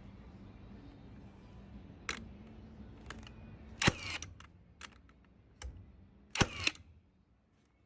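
Sharp clicks and two louder clatters with a metallic ring, about four and six and a half seconds in, over a steady low hum.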